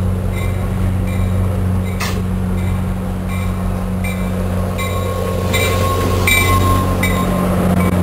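NJ Transit F40PH-2CAT diesel locomotive pulling into the station past the platform with its Comet coaches, its engine giving a steady low hum. A grade-crossing bell rings about every three quarters of a second. There is a sharp clank about two seconds in, and a thin wheel squeal from about halfway as the train slows.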